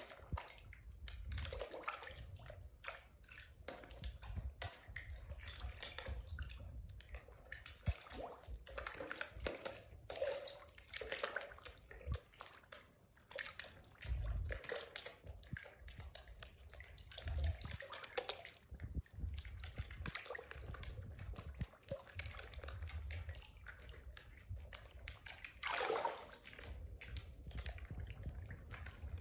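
Goldfish splashing at the pool surface as they snatch floating pieces of bread: a run of irregular small splashes and drips, with a low rumble coming and going underneath.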